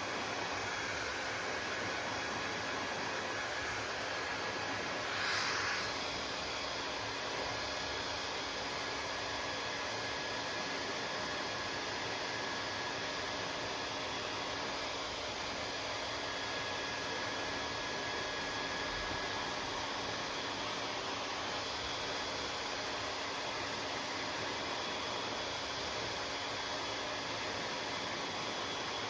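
Hair dryer running steadily, a constant blowing hiss with a faint whine in it, briefly louder for about a second some five seconds in.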